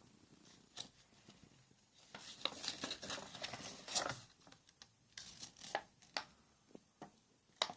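Handling noise: faint clicks, taps and crinkling rustles from small parts and packaging being picked up and moved, busiest from about two to four seconds in.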